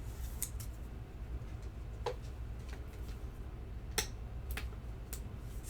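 Scattered light ticks and clicks of trading cards being handled and sorted, over a low steady hum.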